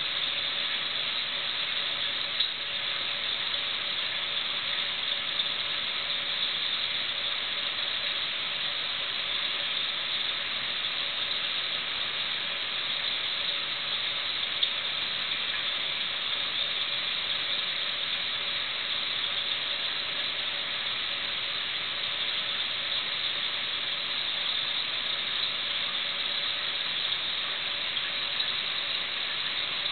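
Steady hiss of a reef aquarium's water circulation with a faint pump hum, broken a few times by sharp single clicks typical of pistol shrimp snapping their claws.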